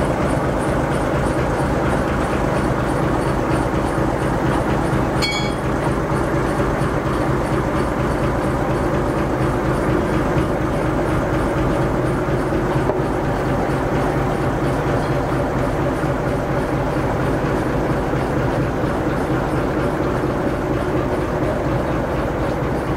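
Diesel shunting locomotive's engine running steadily as it slowly moves BR Standard 4MT tank locomotive 80105 along the track, with the wheels rumbling on the rails. A brief high squeal comes about five seconds in.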